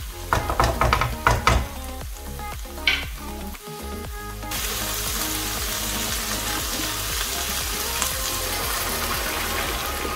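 Food frying in a pan, a steady sizzle that starts abruptly about halfway through, over background music. A few sharp clatters sound in the first two seconds.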